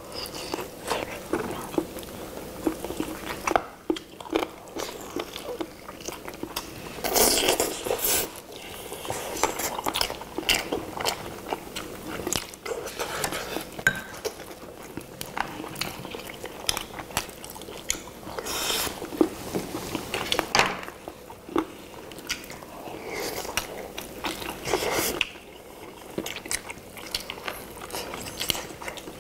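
Several people biting into and chewing sauce-glazed roast chicken legs close to the microphone, with frequent small mouth clicks and a few louder bites now and then.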